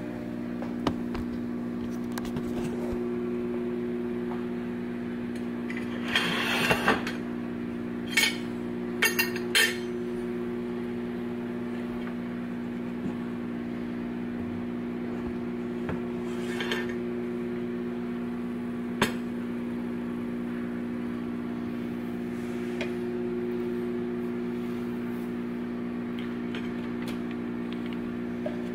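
Clinks and knocks of an air fryer's metal basket being handled and set down, with a cluster of sharp clatters between about six and ten seconds in and a few single knocks later. A steady electrical hum runs underneath.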